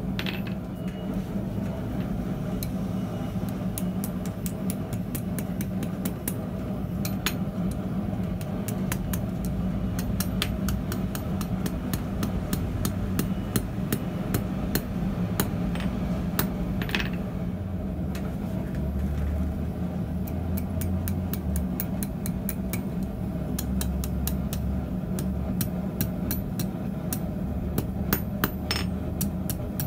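Hand hammer striking a red-hot 6 mm steel rod on an anvil: runs of quick blows with short pauses between, over a steady low hum.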